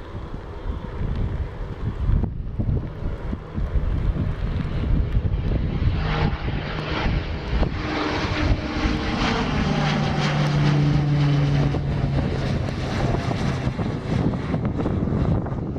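Propeller aircraft passing close by: its engine drone swells from about six seconds in, and its pitch falls as it goes past. Wind buffets the microphone.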